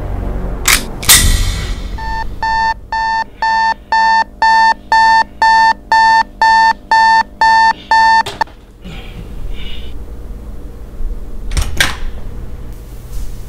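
Sony digital alarm clock going off: a run of identical electronic beeps, about two a second, that cuts off after about six seconds. Before it, about a second in, come two short loud noises.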